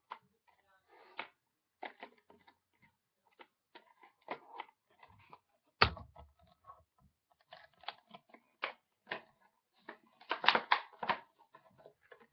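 Gift packaging being handled and opened by hand: scattered clicks, crinkles and rustles, with one sharp knock about six seconds in and a busier burst of rustling near the end.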